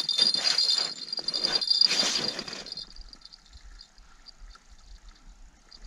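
Spinning reel on an ice-fishing rod being cranked in quick rhythmic turns while a fish is brought up through the hole, stopping about three seconds in. Only faint small sounds follow.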